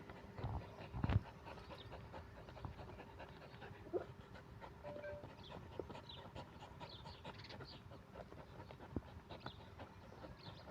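A puppy panting softly, with a brief whine about four seconds in.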